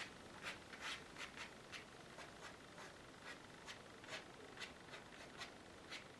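Fingernail scraping across watercolour paper, a string of faint short scratches at about two or three a second, scraping paint out of the wash.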